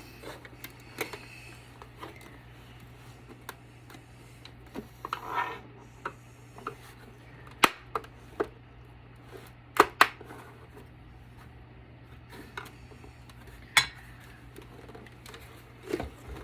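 Scattered sharp clicks and knocks of a plastic computer battery backup (UPS) casing being handled and turned over on a table, with a few louder knocks spread through, over a steady low hum.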